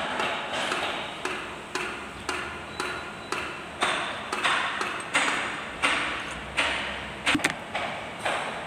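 Rhythmic sharp metallic strikes, roughly one every half second to second, each ringing briefly before the next.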